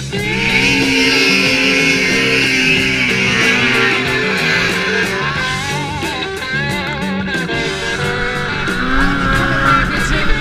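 Rock music with electric guitar, with a steady beat and wavering sustained guitar notes.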